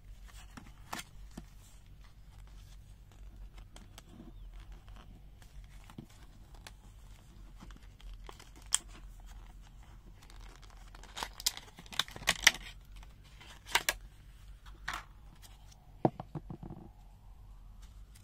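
Paper backing card tearing and the clear plastic blister crinkling as a blister-packed tool is opened by hand: scattered sharp rips and crackles, busiest a little past halfway through.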